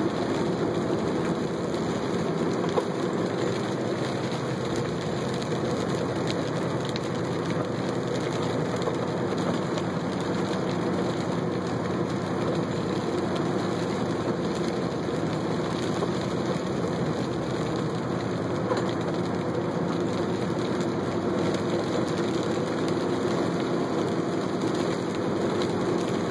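Steady road noise heard inside a moving vehicle's cabin: engine running and tyres on wet pavement, with light rain.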